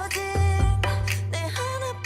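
K-pop song playing: a woman singing over a beat with a deep, steady bass.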